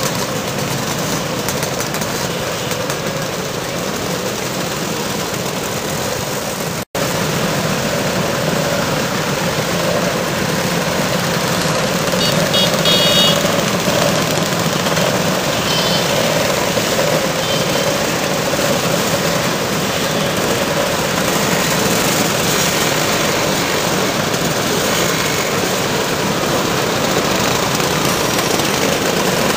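Dozens of Vespa and Lambretta scooters riding past in a pack, their engines running together as a dense, steady din, with a momentary dropout about seven seconds in.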